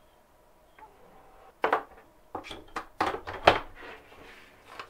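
Paper cut-outs being handled and shuffled on a cutting mat, with a metal ruler and tools clattering as they are set down: several sharp knocks starting about a second and a half in, the loudest about three and a half seconds in.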